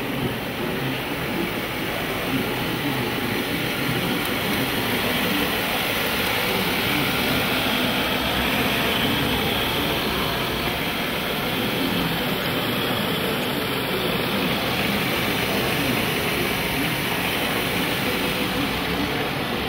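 Haaga manual push sweeper rolling over carpet, its rotating brushes and wheels making a steady noise, with voices murmuring behind it.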